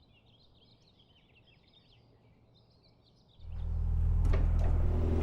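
Faint bird chirps over near silence. About three and a half seconds in, an engine starts to be heard, running steadily with a low rumble and a few clicks over it.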